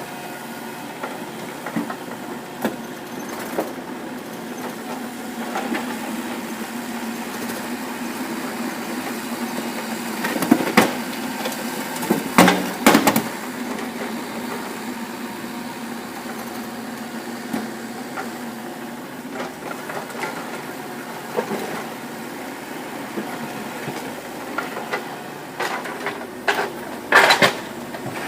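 Kubota mini excavator's diesel engine running steadily, with loud clanks and knocks from the bucket and attachment about ten seconds in, again around twelve to thirteen seconds, and near the end.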